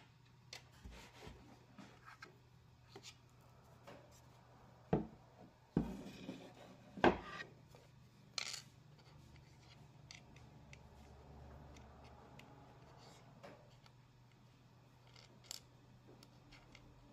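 Hands handling small metal flat nuts and an MDF board: a scatter of light clicks, taps and knocks, with a few louder knocks about five to eight seconds in.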